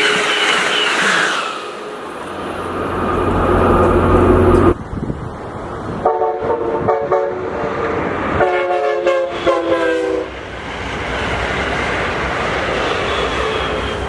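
Amtrak locomotive multi-chime air horn: a chord dies away just after the start, then after an abrupt cut the horn sounds again in a run of about four or five blasts in the middle, with the rushing noise of the passing train around them.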